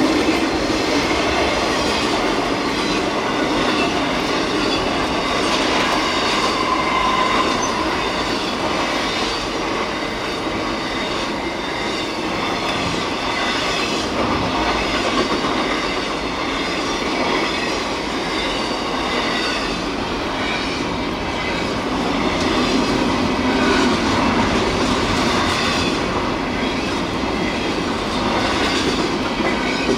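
Double-stack intermodal freight cars rolling steadily past, heard from inside a car: continuous rumble and clatter of steel wheels on rail, with some high wheel squeal.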